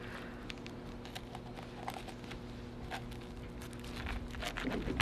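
Fillet knife working through a crappie's flesh and ticking over its rib bones, with scattered small clicks and wet handling noises, over a steady low hum.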